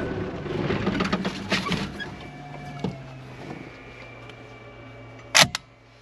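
A four-wheel drive running with rattles and clicks, settling to a steady low engine hum; about five seconds in, a single loud rifle shot cracks out, with a smaller crack just after it.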